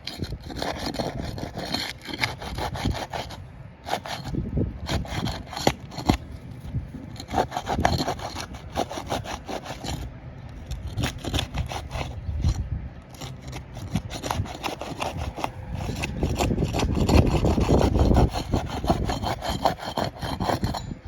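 A pry tool scraping and working under asphalt shingles to lift them, breaking their sealant bond: repeated rough scraping strokes with sharp clicks and snaps, heaviest near the end.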